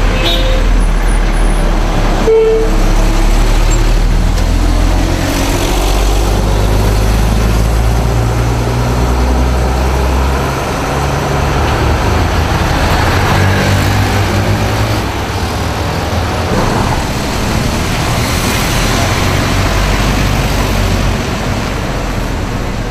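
Road traffic passing close by: a loud low engine rumble from passing vehicles, strongest in the first half, over a steady wash of tyre and road noise.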